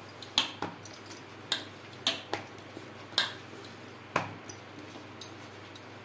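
Jowar flour dough being kneaded by hand with a little water in a dish: a run of sharp knocks and clinks, about two a second, thinning out toward the end.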